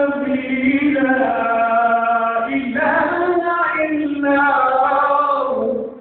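A qari's voice reciting the Quran in melodic tajwid style, drawing out long held notes with a short break for breath about two and a half seconds in. The phrase fades out near the end.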